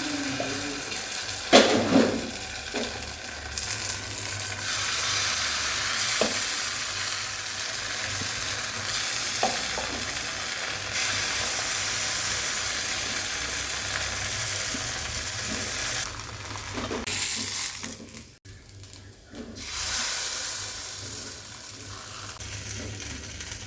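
Food sizzling as it fries in a pan and is stirred, with a few short knocks, the loudest about a second and a half in. The sizzle drops away briefly near the end.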